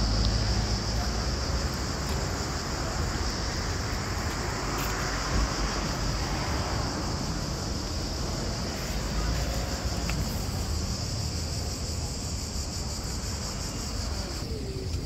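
Steady high-pitched insect drone at one even pitch, over a low rumble of traffic and wind. The drone drops away near the end.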